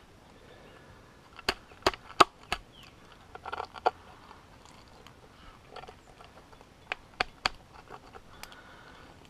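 Metal climbing hardware clicking and clinking as a spring-loaded camming device and a quickdraw's carabiners are handled and set in a rock crack. About four sharp clicks come, then a short rattle, then three more clicks near the end.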